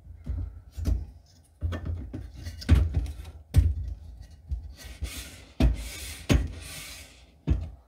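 3D-printer XY gantry being slid into place by hand: steel shafts and printed plastic carriages giving a string of irregular knocks and clunks, with the bearings hissing along the shafts in the second half.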